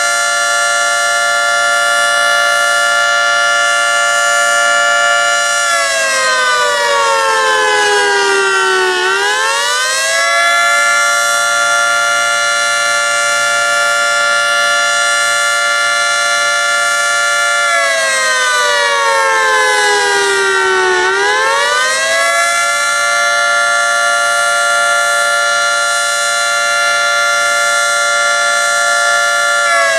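Federal Signal 3T22 three-tone outdoor warning siren sounding the attack (wail) signal. Its chord holds steady for several seconds, then slides down in pitch and swoops back up, twice.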